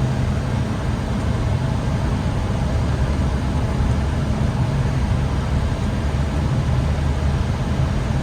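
Steady cockpit noise of an Airbus A320neo on short final approach: a continuous rush of airflow over the airframe over a low engine rumble.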